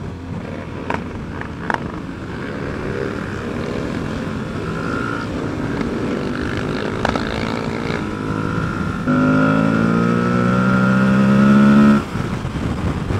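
Aprilia Tuareg 660's parallel-twin engine pulling under steady acceleration, its revs climbing gradually. It gets louder about nine seconds in and cuts back suddenly near the end, with a few faint knocks along the way.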